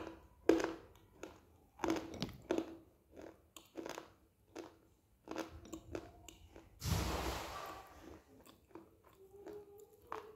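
Close-up crunching and chewing of a mouthful of dry edible clay: a string of sharp, brittle crunches between the teeth, with a longer gritty grinding stretch about seven seconds in.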